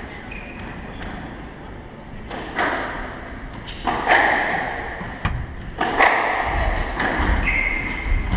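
Squash ball being hit back and forth in a rally: a string of sharp racquet and wall hits, each ringing on in the enclosed court, with short squeaks of court shoes on the wooden floor.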